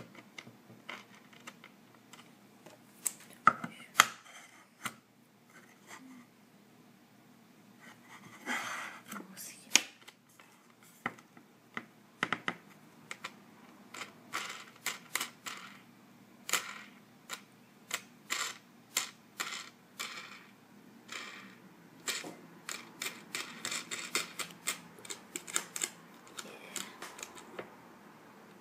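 Irregular clicks, taps and small knocks of steel nuts and bolts being handled and fitted on a wooden base, the clicks coming in quick runs in the second half.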